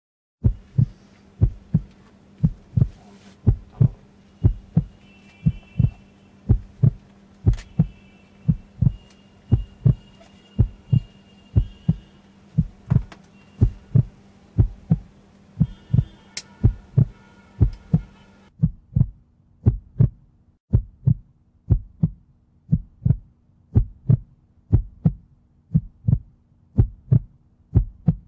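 Heartbeat sound effect: a steady, low pulse of about three beats every two seconds over a faint hum.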